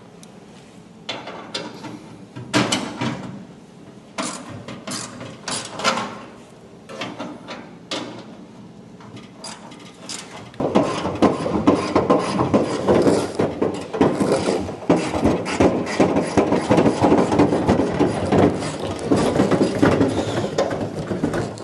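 Ratchet wrench clicking as bolts are backed out. Short bursts of clicks come and go in the first half, then rapid clicking runs on without a break from about halfway.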